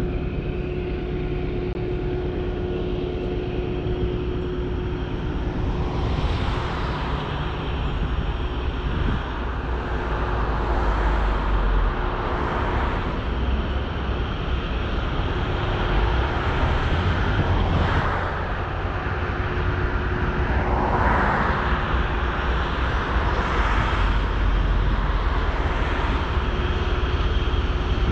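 Freight train with diesel-electric locomotives running: a steady engine drone over a low rumble, with swells of rushing noise every two to three seconds.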